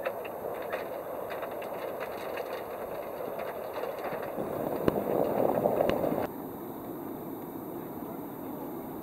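Water lapping and splashing against a boat hull: a steady wash with small splashy clicks. It swells louder, then drops abruptly to a softer wash about six seconds in.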